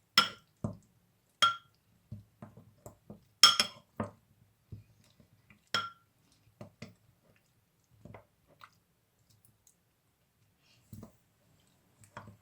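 Viburnum berries being crushed by hand in a bowl: sharp clinks of the utensil striking the bowl, several with a brief ring, among softer dull knocks. The strokes come irregularly and thin out after about six seconds.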